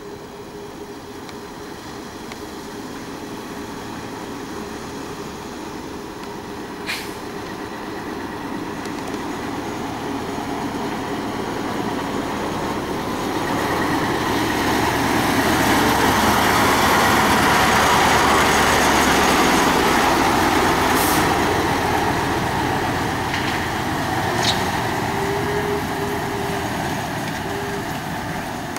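Nissan Diesel concrete mixer trucks driving slowly past: the diesel engine grows steadily louder as the lead truck approaches, is loudest as it passes about two-thirds of the way through, then fades as it moves away with a second mixer truck behind. A few short, sharp clicks or hisses stand out now and then.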